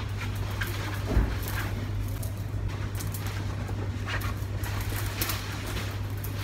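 A denim coat rustles as it is handled and pulled on, in short scratchy bursts over a steady low hum. There is a single bump about a second in.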